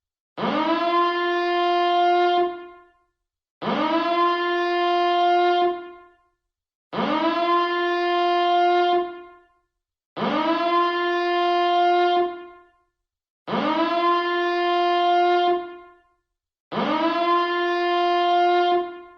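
Alarm siren billed as a nuclear power plant reactor siren, sounding six times in repeated blasts, about one every three seconds. Each blast swoops up in pitch, holds a steady horn-like tone for about two seconds, then dies away before a short gap.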